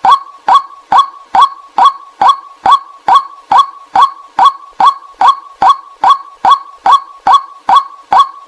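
White-breasted waterhen call played as a hunting decoy recording: a short, harsh note near 1 kHz repeated monotonously at a little over two a second, without a break.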